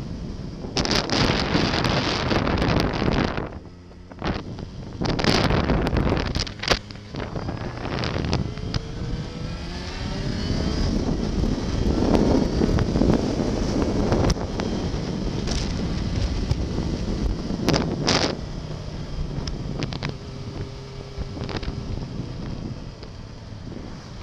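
Yamaha XJ6 Diversion's inline-four engine running under way, rising in pitch as the bike accelerates about eight seconds in. Gusts of wind rush over the microphone, loudest in the first few seconds.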